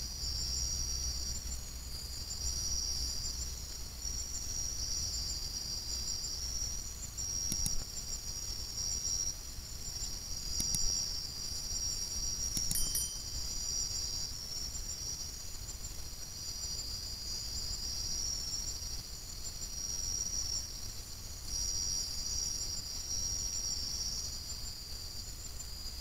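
A night chorus of insects, several overlapping high-pitched trills that go on and off, over a low steady rumble, with a few faint clicks in the middle.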